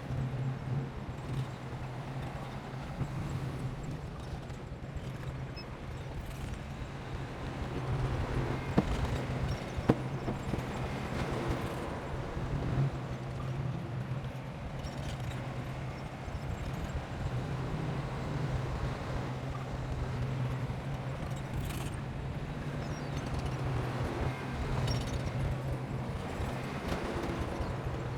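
Heavy diesel earthmoving machinery running steadily, with a constant low engine hum under a clattering noise and a couple of sharp knocks about nine and ten seconds in.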